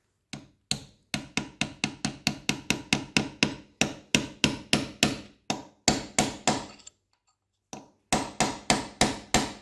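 Steel hammer tapping a pin punch to drive a retaining pin out of the leadscrew collar on a milling machine, with a short metallic ring after each blow. The blows come fast and even, about four a second, in one long run, then a pause of about a second and a second run near the end.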